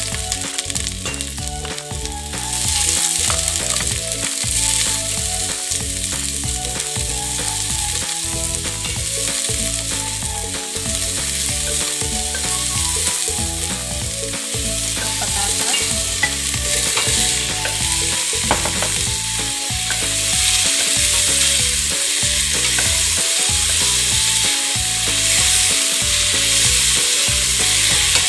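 Sliced leeks sautéing in hot oil in a stainless steel stockpot, a steady sizzle, stirred with a wooden spatula; cubed potatoes go into the pot partway through.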